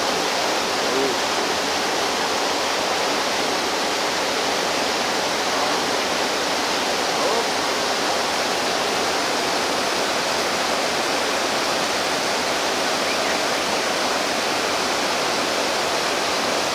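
Steady, loud rush of flowing water, like a stream or weir close to the microphone.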